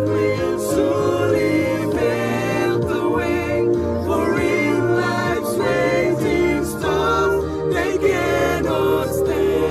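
Music: a song with singing voices over steady instrumental backing.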